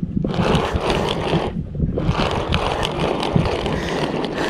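Wind buffeting an action camera's microphone over open water, with water lapping and sloshing against the boat. The noise is uneven, rumbling and gusty, and eases briefly a little under two seconds in.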